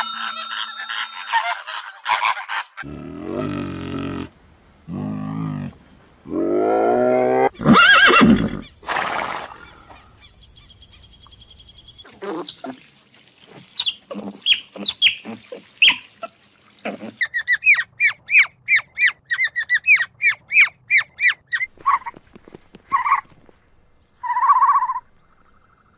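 A series of different animal calls in quick succession. Low, drawn-out calls come early, then scattered chirps, a fast run of about two to three chirps a second, and short squawks near the end.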